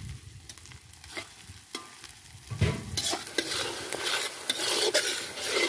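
A metal spatula stirs and scrapes onion-and-spice masala frying in oil in a large metal karai, with sizzling. About three seconds in the stirring becomes louder, with repeated scrapes against the pan.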